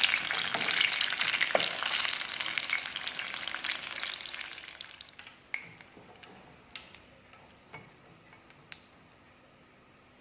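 Batter-coated green chillies deep-frying in hot oil in a kadai: a dense, crackling sizzle that dies away about halfway through. A few scattered sharp pops and clicks follow.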